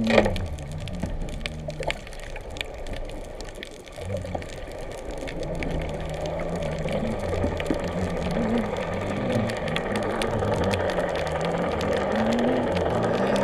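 Muffled underwater sound picked up through a GoPro's waterproof housing just below the surface: a steady wash of water noise that slowly grows louder, scattered faint clicks, and a low, wavering hum underneath.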